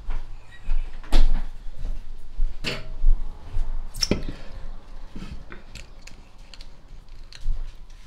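A handful of sharp knocks and clicks of household things being handled, over a low, uneven rumble.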